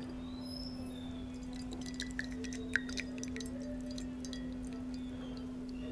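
Tea dripping and trickling back into a ceramic mug from a lifted perforated infuser basket: a quick patter of small drips and plinks, thickest in the middle, over a steady low hum.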